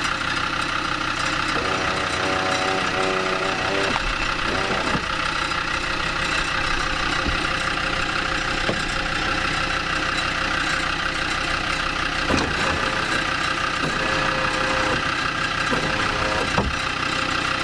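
A steady mechanical drone runs throughout, with a short pitched sound a couple of seconds in and two brief knocks, about twelve and sixteen and a half seconds in.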